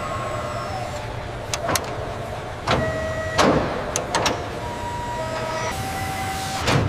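Factory machinery and power tools over a steady hum: several sharp mechanical clicks and clanks, with short whirs of an electric motor at a steady pitch in between.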